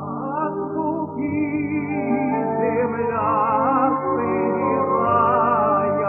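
Operatic tenor singing a Russian romance with vibrato, held notes wavering over a sustained instrumental accompaniment.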